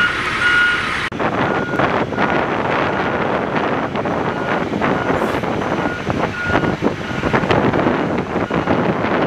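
A vehicle's reversing beeper sounds at a steady pace for about a second. Then the sound changes abruptly to a steady rush of wind on the microphone over a running Medium Tactical Vehicle Replacement truck engine, with faint beeps still coming through now and then.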